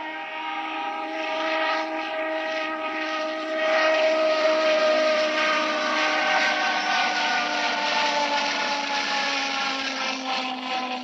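A train passing with its horn sounding: a chord of several steady tones over the rumble and hiss of the train. It swells to its loudest about four seconds in, and the chord slowly falls in pitch as the train goes by.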